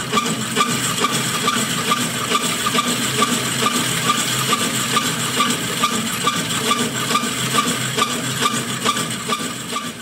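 Glass telescope mirror blank being hand-ground with abrasive grit: a steady gritty scraping with a regular beat of about two strokes a second.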